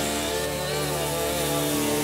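Chainsaw engine running steadily, its pitch wavering slightly up and down as the throttle shifts.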